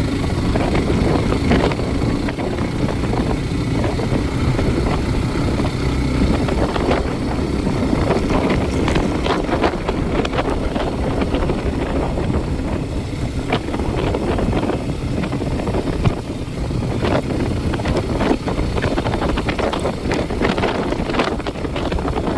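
A vehicle in motion: a steady low rumble with wind buffeting the microphone, broken by many short knocks and rattles.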